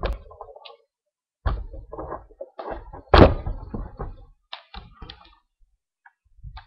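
Irregular knocks, clunks and rattles as a small 6.5 HP Honda-clone gas engine is handled on a wooden deck, not running, with one loud thump about three seconds in.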